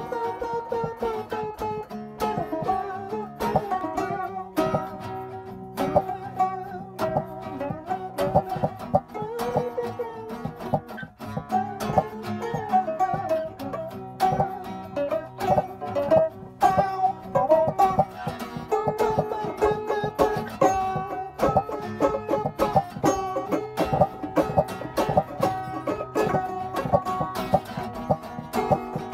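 Improvised jam of a five-string banjo and an acoustic guitar: a run of quick picked banjo notes over the guitar playing along underneath.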